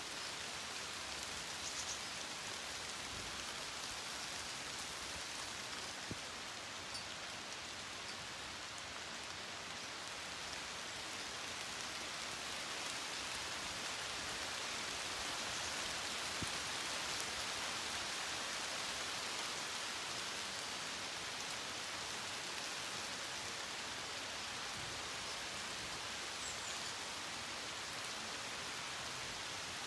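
Steady rain, an even hiss with a few faint ticks, growing a little louder midway.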